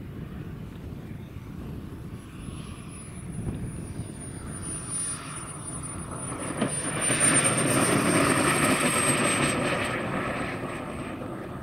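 CARF Ultra Flash RC sports jet's Kingtech K-140 turbine flying past. A high, thin whine slowly falls in pitch, and a rushing noise swells about two-thirds of the way in, then fades.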